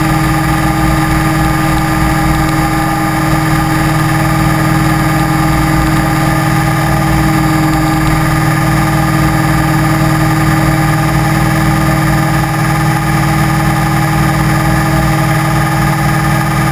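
Electric motor and propeller of an FPV model aircraft, heard from the onboard camera, running steadily at constant throttle as a continuous whine and buzz that holds one pitch.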